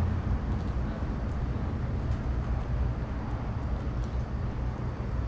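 Steady low outdoor rumble, with a few faint clicks.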